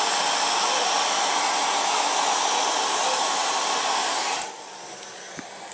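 Handheld hair dryer blowing steadily, switched off about four seconds in.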